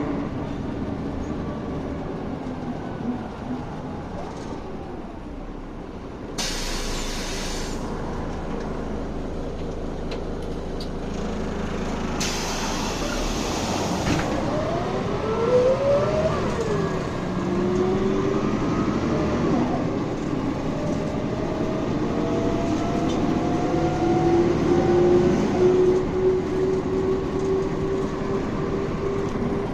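City bus running, heard from inside the passenger cabin, with its drivetrain whine rising in pitch as it pulls away and speeds up. Two sharp air hisses from the bus's pneumatics come about six and twelve seconds in.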